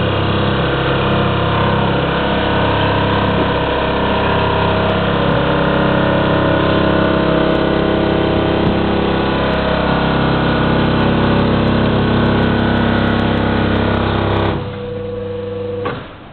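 Vacuumatic Vicount 3PB pin-and-blade paper counting machine running a count through a stack of copy paper: a loud, steady mechanical hum made of several held tones. It cuts off about three-quarters of a second before the end as the count finishes, leaving a quieter hum.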